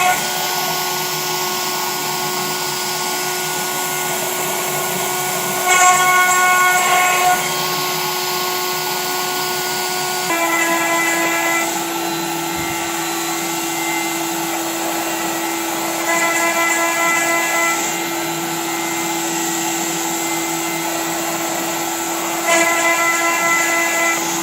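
Self-built CNC router's spindle running with a steady high whine that drops slightly in pitch about ten seconds in. Four times the whine grows louder and harsher for a second or two.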